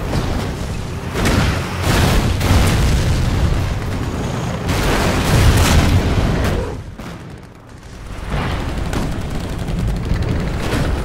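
Film battle soundtrack of repeated explosions booming, with gunfire between them; the din dips briefly about two-thirds of the way through before picking up again.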